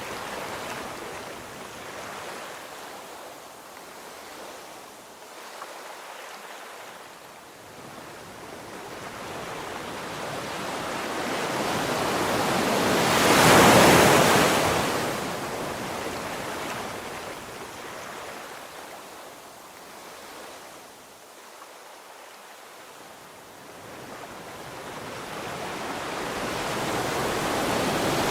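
Surf breaking on a shore: a steady wash of waves that swells to one loud peak about halfway through and builds again near the end.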